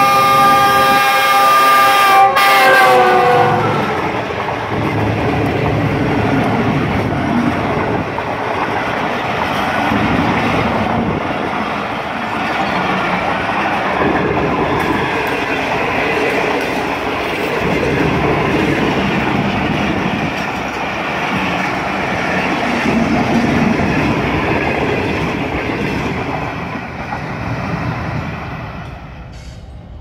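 Pakistan Railways GEU-40 diesel-electric locomotive blasting its multi-tone horn at close range. The chord breaks off and slides down in pitch as the engine passes about three seconds in. A long rake of passenger coaches then rolls by with a steady wheel clatter, fading near the end.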